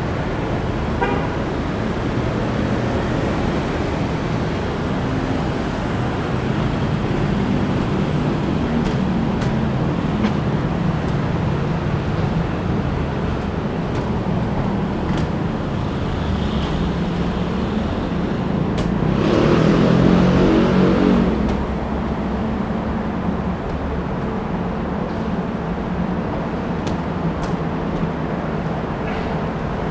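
Steady road traffic from cars and motorcycles below. About twenty seconds in, one vehicle passes louder for a couple of seconds.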